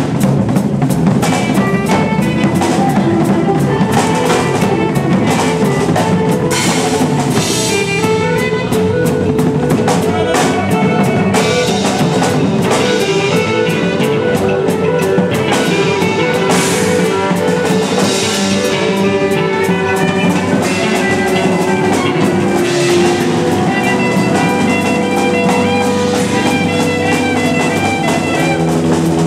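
Live improvised noise-rock jam: a drum kit played busily with frequent cymbal and drum strikes, under sustained, droning electric guitar.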